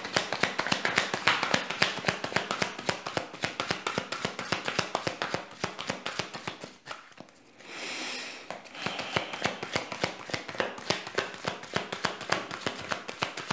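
A tarot deck being shuffled by hand, the cards clicking and flicking rapidly against each other. Near the middle there is a short pause, then a brief smooth swish before the quick clicking resumes.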